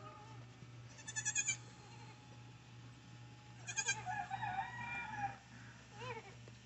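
Nigerian Dwarf goats bleating: a quavering call about a second in, a longer one starting about four seconds in, and a short call near the end.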